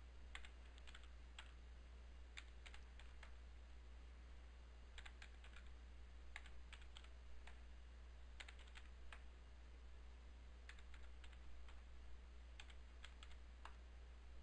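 Faint typing on a computer keyboard: irregular clusters of key clicks as numbers are keyed in, over a steady low hum.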